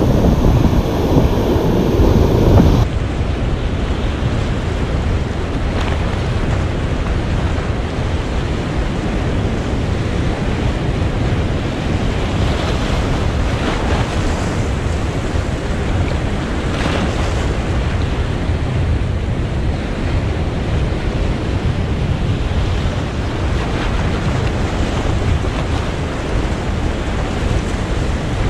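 Surf breaking and washing over a rocky reef, with wind buffeting the microphone. Heavier and louder for about the first three seconds, then a steady wash of water.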